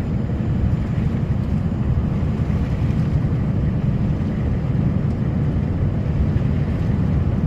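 Snowplow truck driving at about 50 with its plow pushing a full load of snow: a steady low rumble of engine and plow.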